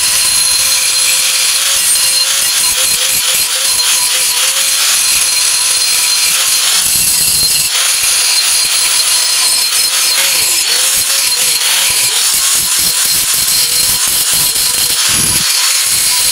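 Angle grinder running with a steady whine, its disc grinding down built-up weld metal on a steel plate to flatten the bead before the next pass.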